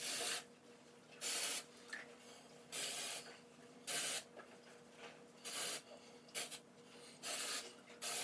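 Aerosol can of dry shampoo sprayed into hair in about eight short hissing spritzes, each well under half a second, roughly a second apart.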